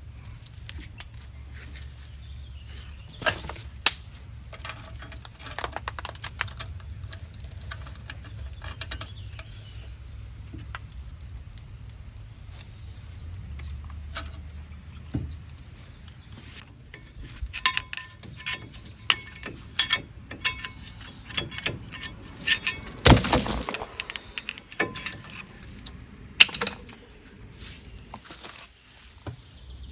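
Metal hand tools and brake parts clinking and knocking in scattered sharp taps, with one louder clatter a little past the two-thirds mark.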